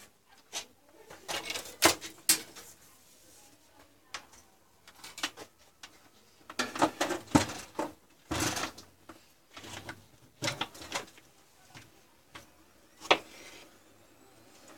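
Hands handling cables and parts inside an open metal desktop PC case: irregular clicks, knocks, rattling and rubbing, with a few sharp clicks, the loudest about two seconds in and near the end.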